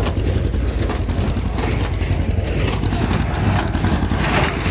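John Deere 50 two-cylinder tractor pulling a New Holland 273 small square baler, heard from the hay rack behind it: a steady low engine and baler rumble, with irregular rustles and knocks over it.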